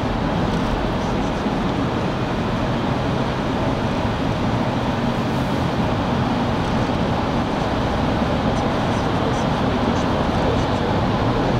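Steady road noise heard from inside a moving car driving through a road tunnel: tyre and engine noise in an even rush with no distinct events.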